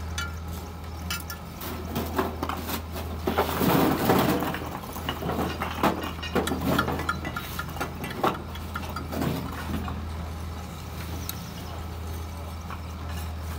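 Bricklaying: a steel trowel scraping and tapping on bricks and mortar, with bricks clinking as they are picked up and set, busiest through the middle. A steady low hum runs underneath.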